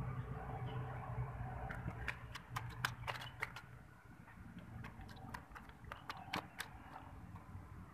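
Fishing reel clicking in irregular clusters while a hooked tilapia is being played, over a faint steady low rumble. The clicks start about two seconds in and stop shortly before the end.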